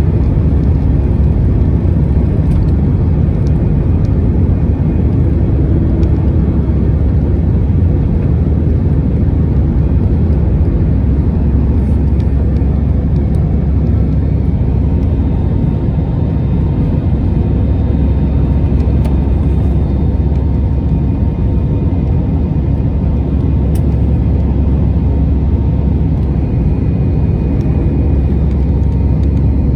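Airbus A319 cabin noise at takeoff power: a steady, loud, low-pitched engine and airflow noise, with a faint whine on top.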